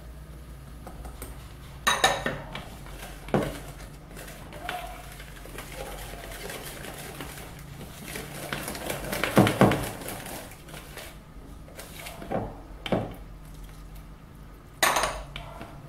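Spatula stirring thick chocolate cake batter in a bowl, scraping around the sides, with several sharp knocks and clinks of the utensil and a glass dish against the bowl.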